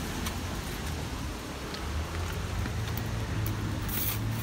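Wet city street noise: a steady hiss of rain and traffic under the low, steady hum of a delivery truck's engine close by.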